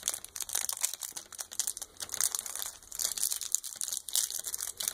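Shiny candy wrapper on a fun-size Twix being crinkled and torn open by hand: a dense, irregular run of sharp crackles.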